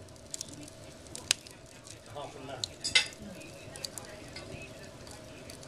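Split logs burning in a wood fire, hissing steadily and crackling with several sharp pops; the loudest pop comes about three seconds in.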